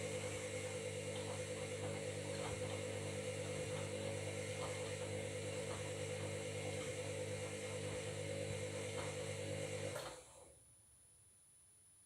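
Washing machine running with a steady motor hum and whine and faint irregular ticks from the turning drum. It cuts off abruptly about ten seconds in.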